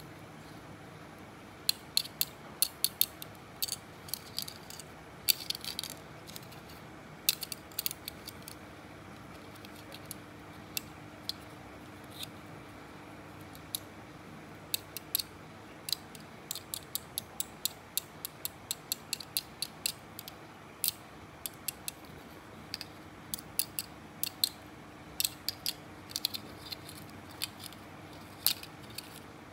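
Shed exoskeleton of a peacock mantis shrimp's claws being handled, giving many sharp, irregular clicks, some in quick clusters, as its jointed segments are flexed between the fingers. A steady low hum runs underneath.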